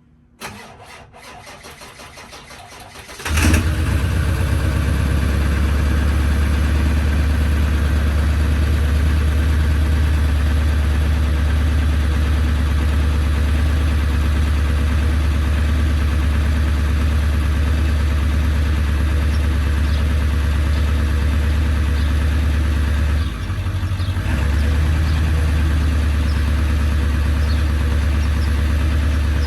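Ford 7.3 L Power Stroke V8 turbo-diesel cranking on its starter for about three seconds, then catching and settling into a loud, steady cold idle, with one brief dip in the engine note near the end. It is a cold start with the block heater plugged in, and the owner suspects the slow start comes from a failing starter.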